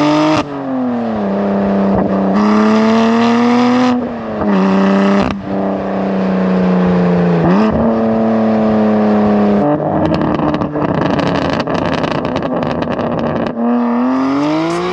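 BMW S55 twin-turbo straight-six exhaust through an equal-length valved exhaust with OEM downpipes, pulling hard and climbing in pitch with several sharp drops. Past the middle it turns to a rough, crackling stretch of several seconds, then it climbs again near the end.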